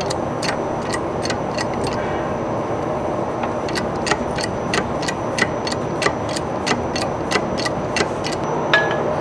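A machine running steadily with a regular sharp ticking, about three ticks a second.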